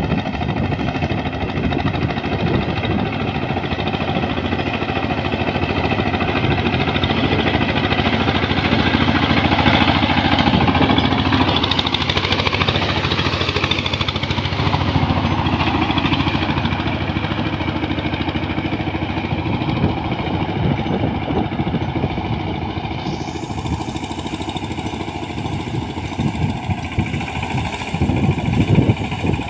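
Kirloskar MegaT 15 hp single-cylinder diesel power tiller running under load as it puddles a flooded paddy field, with a rapid, steady chugging. It grows louder around the middle as it passes close, then eases off.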